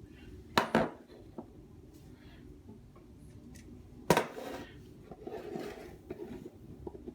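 Hard plastic toy pieces clacking and knocking as they are handled and set down: two knocks close together about half a second in, a single louder knock about four seconds in, and a few lighter taps and rustling between them.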